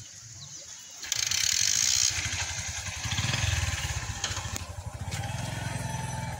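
A small engine starts up about a second in and keeps running with a fast, even putter, growing fuller and deeper about halfway through.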